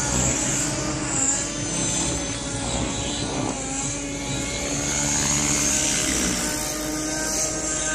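Gaui X5 electric RC helicopter in flight: a steady whine from its motor and spinning rotor blades, the tones wavering in pitch as it manoeuvres and comes down.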